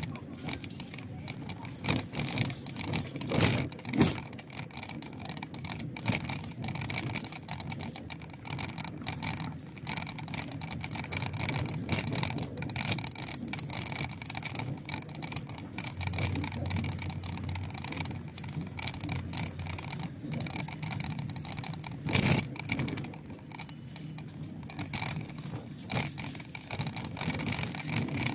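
Footsteps crunching and rustling through dry fallen leaves on a dirt path, over a steady low rumble in the background.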